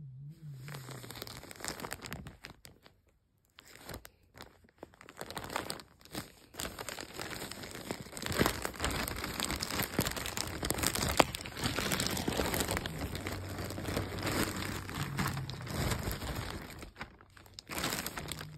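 Plastic poly mailer bag crinkling and rustling as it is handled and rummaged through, with a short pause about three seconds in.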